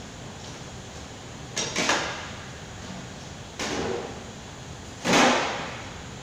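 Stainless steel bowls and trays clanking as they are handled and set down on a steel trolley: a double clank about a second and a half in, another about three and a half seconds in, and the loudest a little after five seconds. Under them runs a steady hum of the kitchen extractor.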